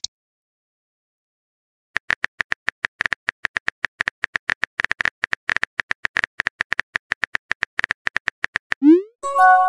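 Phone-keyboard typing sound effect: rapid, irregular taps starting about two seconds in, then a short rising swoosh and a chiming tone near the end as the message is sent.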